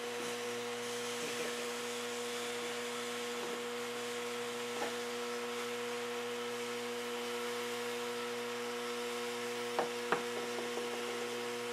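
Steady electric hum with an even background hiss, broken by a few faint short taps and knocks.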